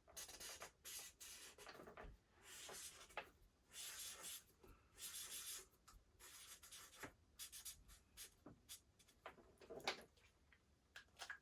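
Faint scratching of a pen on paper, in many short strokes with brief pauses, as comic sound-effect lettering is drawn.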